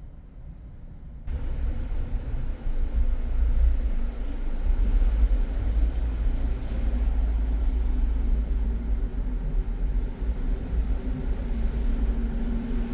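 A car being driven, heard from inside: a steady low rumble of tyres and engine with a low hum. About a second in it suddenly becomes louder and fuller, and then stays steady.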